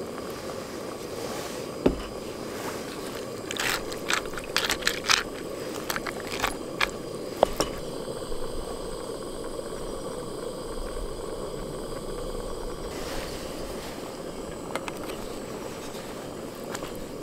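A utensil scraping and knocking in a metal cooking pot, a cluster of sharp clicks and clatters in the first half, over a steady low rushing noise.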